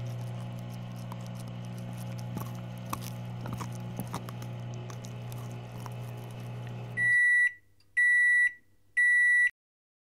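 Microwave oven running with a steady hum and a few small pops, cutting off about seven seconds in, then three loud beeps about a second apart signalling that the heating cycle is done.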